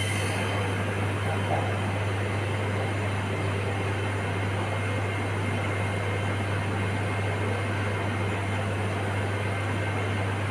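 Steady mechanical hum with an even hiss over it, unchanging throughout.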